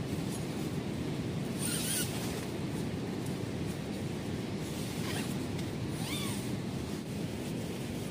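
Surf washing onto the beach and wind buffeting the microphone, a steady low rush throughout. A few short, high chirps sound over it about two, five and six seconds in.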